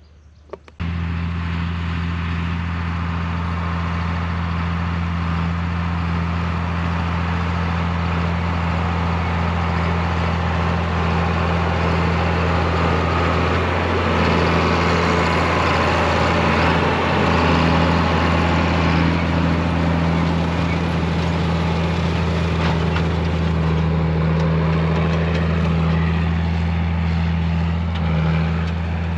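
John Deere 4960 tractor's turbocharged six-cylinder diesel running steadily under load while pulling a planter, a little louder around the middle as it passes closest.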